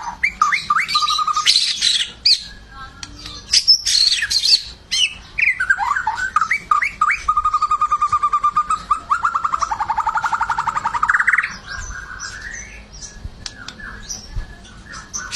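White-rumped shama (murai batu) singing loudly: varied whistled phrases that glide up and down, then a long fast run of rapidly repeated notes lasting about four seconds, the rapid-fire 'tembakan' bursts prized in a singing shama.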